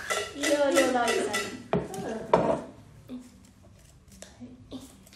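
Draw items rattling and clattering inside a shaken metal bucket, with two sharp knocks about two seconds in, then only a few light clicks.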